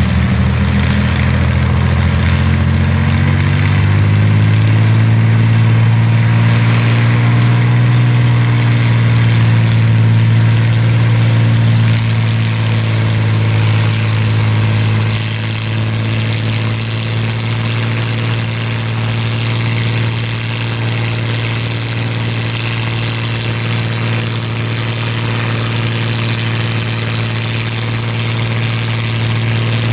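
Rolls-Royce Merlin V12 aero engine running on a test stand. Its revs rise over the first several seconds, then hold steady, easing back slightly about halfway through.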